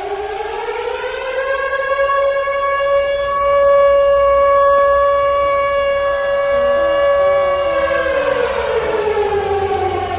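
Civil defense siren sounding a nuclear-attack warning. Its wail rises over the first couple of seconds, holds one long steady tone, then slides back down near the end.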